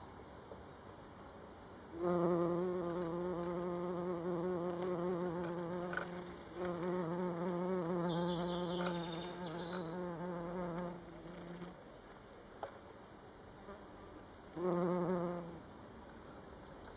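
Bumblebee buzzing in flight around the flowers: a low, slightly wavering drone in three bouts, two long ones of several seconds with a short break between, and a brief one near the end.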